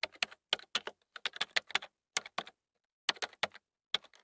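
Computer keyboard typing: quick, irregular key clicks, with a pause of about half a second a little after halfway.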